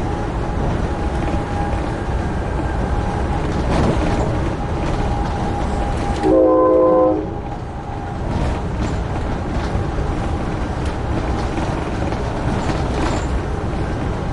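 Train horn sounding once for about a second, a loud chord of several steady tones a little past halfway, over the steady rumble and rail clicks of an Amtrak Northeast Regional train running at speed.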